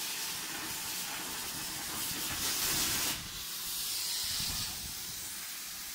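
Plasma cutter hissing steadily. The hiss swells louder about two seconds in for roughly a second, then briefly again near four seconds.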